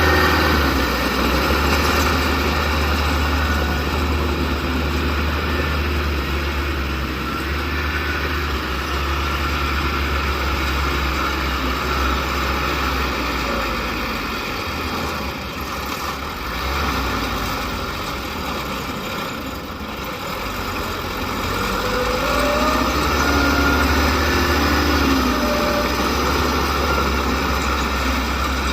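Diesel engine of a bulldozer working earth, running steadily with a deep low rumble; the sound eases off a little around the middle and builds again afterwards.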